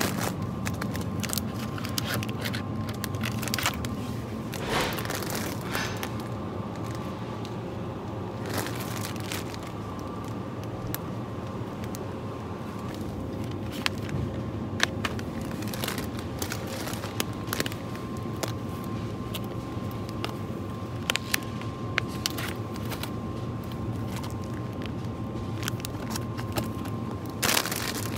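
Supermarket background sound: a steady low hum with a faint steady high tone, and scattered clicks and knocks throughout, the sharpest about halfway through and near the end.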